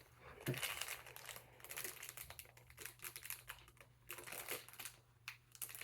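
Plastic packaging crinkling with small plastic pieces clicking as minifigures are handled, in faint, irregular rustles and taps.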